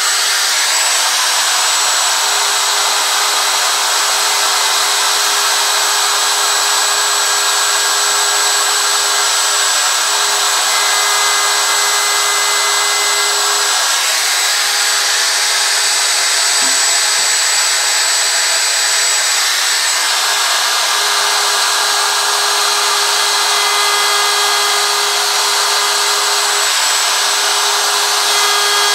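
Handheld DeWalt electric router running steadily, its bit cutting into a carved wooden sign along the edges of the letters, with a constant motor whine.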